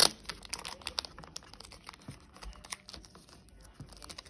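Album packaging and paper inserts handled up close: crinkling and rustling with many small sharp clicks and taps, the loudest click right at the start.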